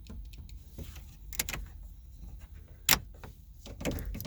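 A few clicks and clunks from the van's cab fittings being moved by hand, with one sharper clack about three seconds in.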